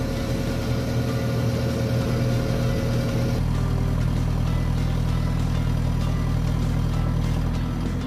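JCB 3CX backhoe loader's four-cylinder diesel engine running steadily at a constant speed. About three seconds in, the sound changes from close by the cab to further off, while the machine holds itself up on its front and rear buckets.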